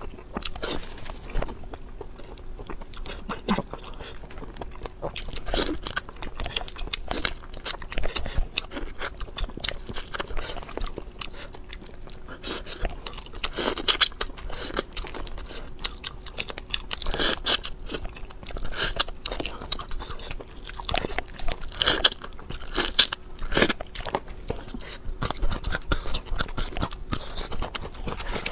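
Close-miked eating of spicy shell-on shrimp: repeated crunchy bites and wet chewing, coming irregularly, with the loudest crunches in the second half.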